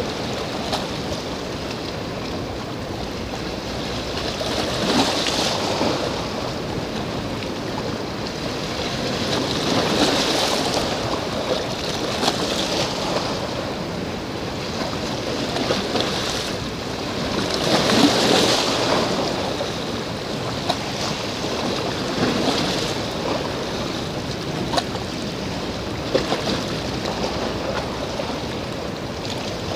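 Sea waves washing on the shore, swelling and fading every few seconds, with wind on the microphone.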